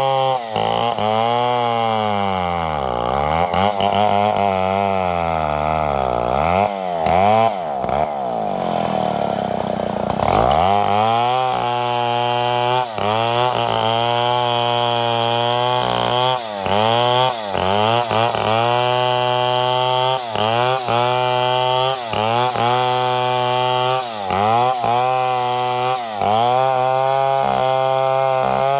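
Two-stroke chainsaw cutting wood at full throttle. Its engine pitch sags again and again as the chain loads up in the cut and climbs back each time, with one longer, deeper drop about a third of the way in.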